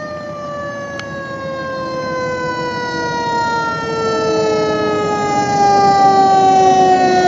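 Fire apparatus siren, its pitch having just risen, now falling slowly and steadily while it grows louder as the truck approaches. A brief click sounds about a second in.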